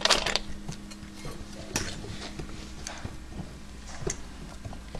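Scattered light taps and clicks of a puppy's paws and claws on wooden fingerboard ramps as it walks, with a sharper knock right at the start. A steady low hum runs underneath.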